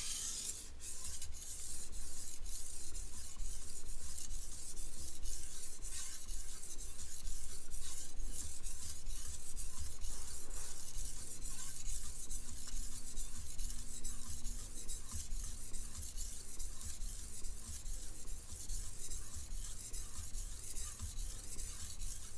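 Chef knife blade scraping back and forth across a whetstone in quick, even strokes, a gritty rasp that repeats steadily. The knife is being sharpened on its second side to raise a burr.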